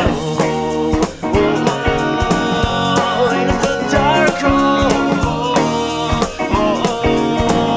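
Rock band music from a rehearsal-room demo: guitars over a steady drum beat, with bending lead lines.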